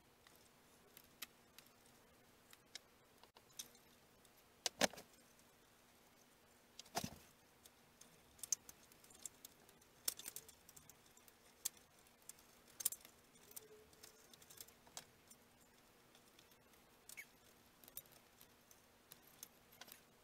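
Scattered small clicks, taps and clinks of balsa strips and small tools being handled on a workbench while sheeting a balsa model-plane fuselage, with two louder knocks about 5 and 7 seconds in. A faint steady hum runs underneath.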